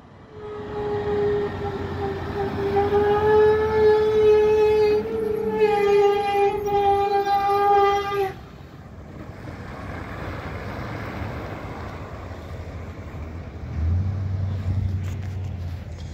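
Semi truck's air horn blown in one long blast of about eight seconds, a steady single pitch with a short dip about five seconds in. After it stops, the truck's engine and tyres rumble as it passes.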